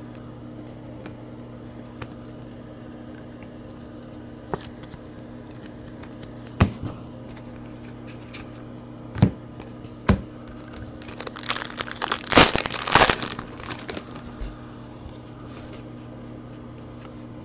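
Plastic card packaging crinkling in a loud burst about eleven seconds in, as trading cards are handled and flipped through, with a few light taps and clicks before it, over a steady low electrical hum.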